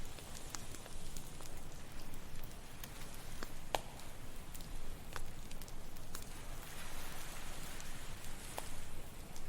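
Campfire crackling, with scattered sharp pops and snaps, over a steady wash of ocean waves; a wave swells up about seven seconds in.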